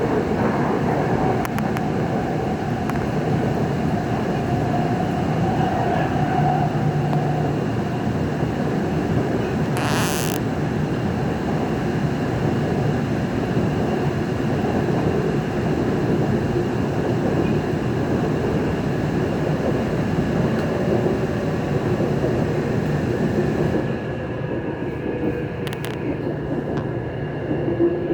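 Busan Metro Line 3 subway train running between stations, heard from inside the car: a steady rumble of wheels on the track with a steady hum from the running gear. There is a brief hiss about ten seconds in, and the higher hiss of the running noise falls away near the end.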